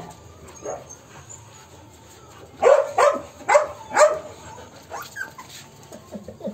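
A dog barking: one faint bark, then four loud barks about half a second apart, a little under three seconds in.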